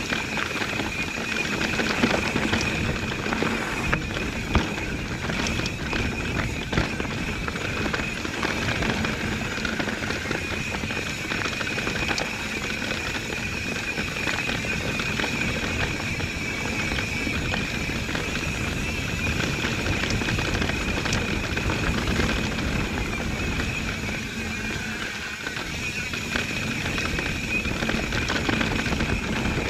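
Mountain bike rolling over a dirt trail: steady tyre and wind noise with scattered knocks and rattles from the bike over rough ground, and a steady high-pitched hum that dips briefly near the end.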